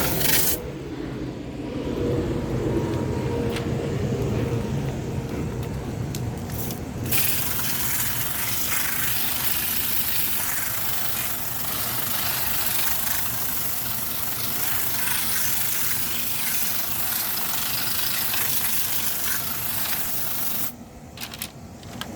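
Garden hose spraying water onto a window air conditioner's coil fins: a steady hiss that breaks off for several seconds shortly after the start, then runs on and stops near the end.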